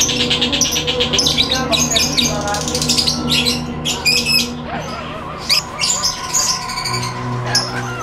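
Lovebirds chattering: rapid, high-pitched chirps and squawks in quick flurries.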